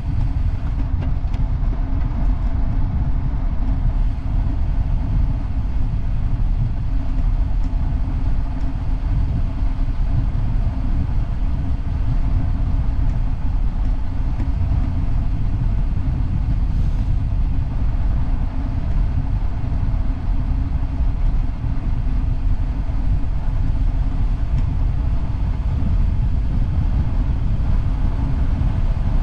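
Wind buffeting the microphone of a camera mounted on a moving road bike, mixed with tyre noise on tarmac: a steady low rumble.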